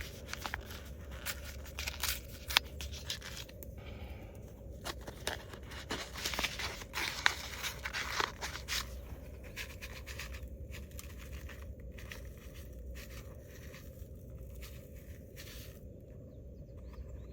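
Clicks, scrapes and rustles of hands handling camp cooking gear and food, busy for the first ten seconds or so and then quieter.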